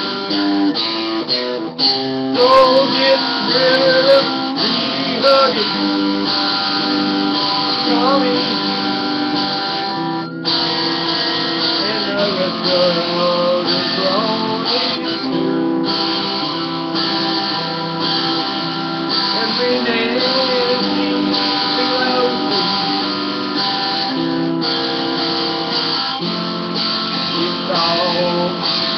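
Electric guitar being played, chords ringing steadily with some wavering notes over them and a brief break about ten seconds in.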